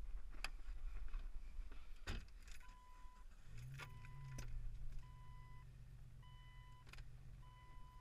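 Jeep's dashboard warning chime beeping steadily, about one beep a second, starting a couple of seconds in, after the knock of the driver's door being shut. A low steady hum comes in under the chime about halfway through.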